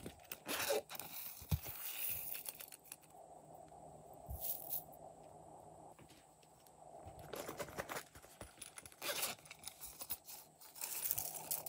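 Silicone zipper pouches being handled and opened, and sequins and glitter tipped from them onto slime in a glass dish: faint, irregular rustling and crinkling with small clicks and scrapes.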